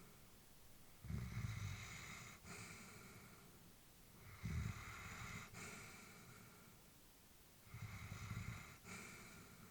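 Elderly Labrador retriever breathing slowly and deeply in sleep: three breaths about three seconds apart, each with a low rumbling part followed by a softer airy hiss.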